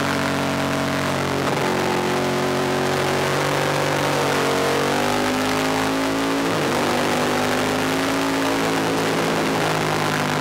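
Ducati 1000DS race bike's air-cooled L-twin engine running hard at high revs. The note is steady in loudness, and its pitch dips and climbs every few seconds with gear changes and throttle, with a clear shift about six and a half seconds in.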